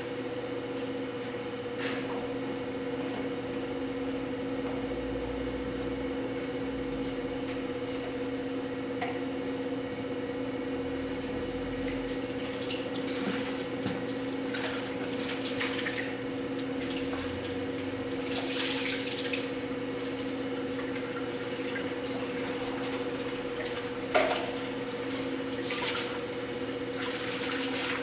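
Potter's wheel running with a steady hum while wet hands slide and squelch on the spinning clay vase. A single sharp knock comes near the end.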